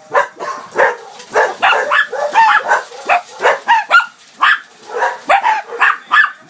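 Dogs barking rapidly and repeatedly, two to three barks a second, in response to a doorbell chime from a TV commercial. This is alarm barking at the sound of a doorbell.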